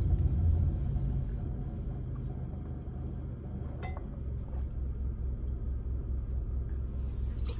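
Car cabin rumble from the engine and road, getting quieter over the first few seconds, then settling into a low, regular throb. A single sharp click comes about four seconds in.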